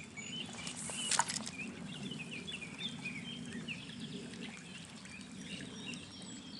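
Small birds chirping repeatedly over the steady rush of a flowing trout stream, with one short sharp sound about a second in.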